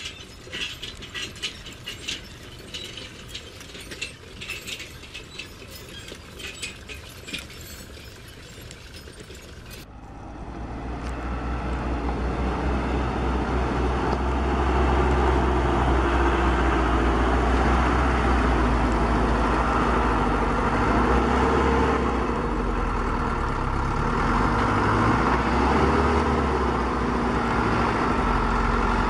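Rapid clicking and ratcheting of remote-controlled toy excavator gears and small motors. About ten seconds in it gives way to a steady, louder truck-engine rumble from remote-controlled tracked toy dump trucks as they drive.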